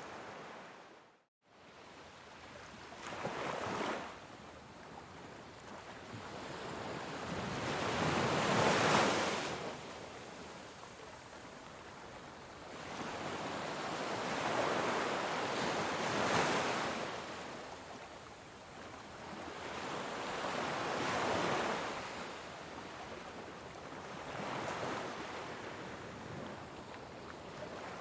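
Ocean waves washing onto a shore, swelling and fading in slow, uneven surges every few seconds. There is a brief cut to silence about a second in.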